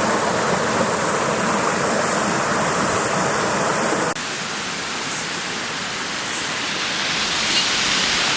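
Steady rushing of a waterfall. About four seconds in the sound drops abruptly to a slightly quieter, thinner rush.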